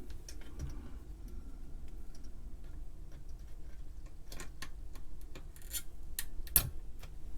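Scattered light clicks and ticks of small metal tools against a circuit board as a soldered component leg is heated and pried up; the clicks come sharper and closer together in the second half.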